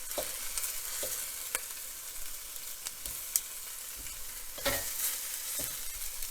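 Marinated chicken pieces frying in oil in a wok, a steady sizzle, with a few sharp clicks and scrapes of cutting or stirring, the strongest about three and a half and four and a half seconds in.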